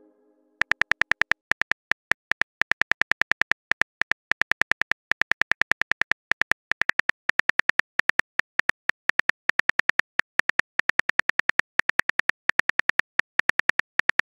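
Phone keyboard typing sound effect: a quick, even run of short key clicks, roughly seven a second, as a text message is typed out.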